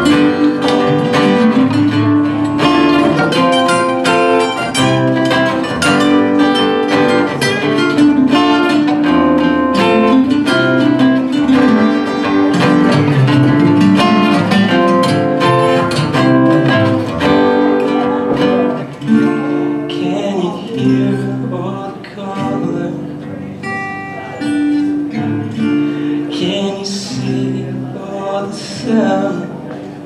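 Two acoustic guitars playing an instrumental passage, busy picked and strummed notes at first, then thinning to sparser, softer ringing notes a little past the middle.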